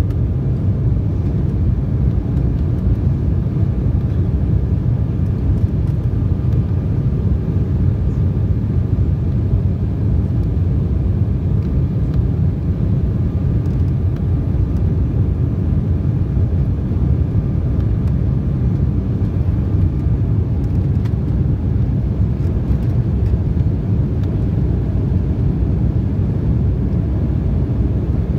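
Steady low rumble inside the cabin of an Embraer 195 airliner: engine and airflow noise from its two General Electric CF34-10E turbofans, even in level.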